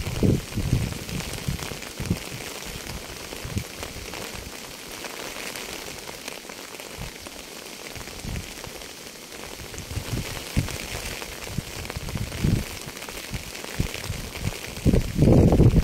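Steady rain falling: a continuous hiss of drops, with bursts of low rumbling near the start and again near the end.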